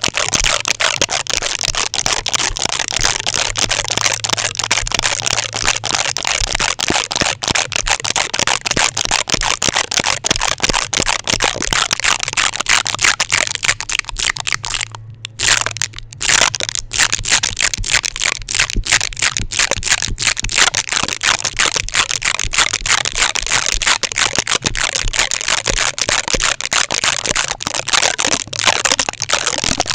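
Tape stuck on a microphone being rubbed and handled fast and hard: dense, loud crackling full of rapid sharp clicks, breaking off for a moment about halfway through.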